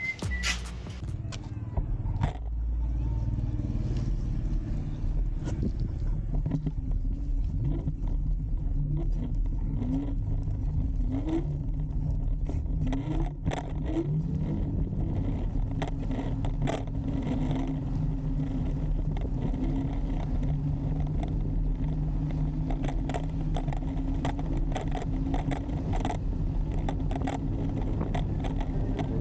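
Blade GT electric kick scooter being ridden: a steady motor and road hum, with several short rising whines about a third of the way through as it speeds up. Scattered clicks and rattles run through it.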